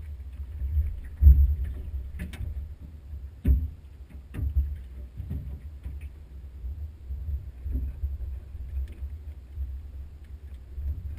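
Irregular knocks and clunks in a small aluminum boat, about half a dozen, over a steady low rumble.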